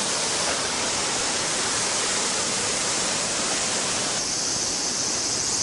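Steady rushing of flowing water. About four seconds in the water sound drops back and a high insect buzz comes up.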